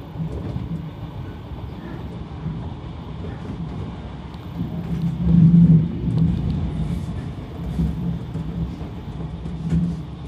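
Enshu Railway electric multiple-unit train running along the line, heard from inside the car: a steady low rumble of wheels on rails with a low hum that swells about halfway through.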